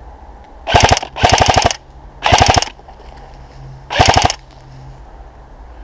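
Electric airsoft rifle firing four short full-auto bursts, each a rapid string of clicks close to the microphone, the second burst the longest.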